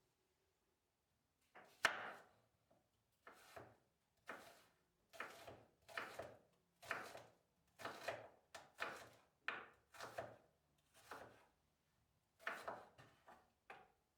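Knife chopping food on a cutting board in a steady series of strokes, about three every two seconds. The chopping starts about two seconds in and stops just before the end.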